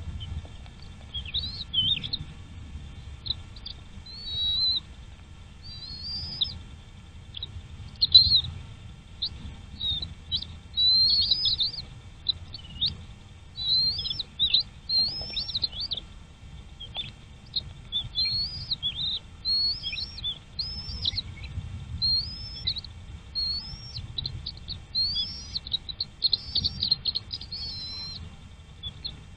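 Small birds chirping: a steady run of short, high chirps that bend up and down, a few every second, over a low rumble.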